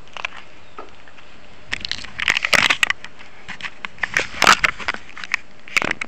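Handling noise on a concealed camera: irregular crackling, rubbing and scraping as the camera shifts against the wearer's clothing and hand, in uneven clusters that grow louder from about two seconds in.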